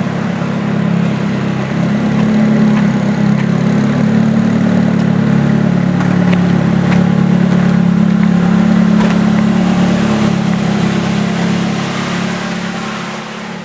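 Nissan S14 200SX engine idling steadily, then fading out near the end.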